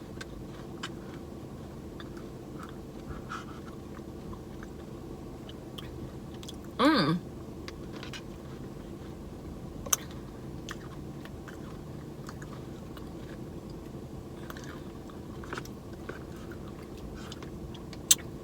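A person eating ice cream from a cup with a spoon: soft chewing and a few sharp clicks, over a steady low hum. About seven seconds in there is a brief hummed "mmm", the loudest sound.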